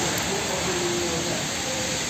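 Heavy rain on a flooded street: a steady, even hiss of falling rain and water on the wet road.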